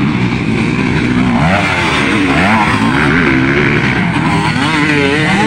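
Motocross dirt bike engines revving hard, their pitch rising and falling over and over as the bikes accelerate and back off around the track and jumps.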